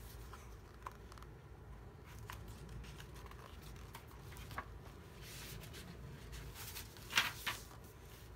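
Paper pages of a picture book being handled and turned: faint taps and soft rustles, with two louder page rustles near the end.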